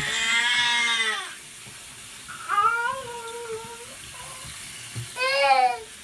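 A domestic cat meowing three times, each a drawn-out meow that rises, holds and falls in pitch.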